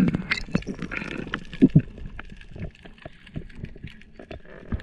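Underwater sound picked up through a camera's waterproof housing while a diver moves over a reef: irregular sharp clicks and a few muffled low thumps over a faint water rush.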